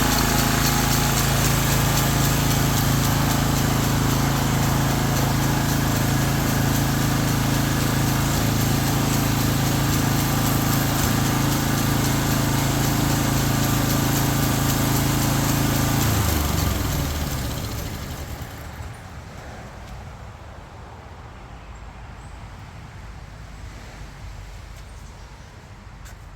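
Small engine of a Ryan Greensaire walk-behind core aerator running steadily, then shut off about two-thirds of the way through and winding down within a second or two, leaving a low outdoor background.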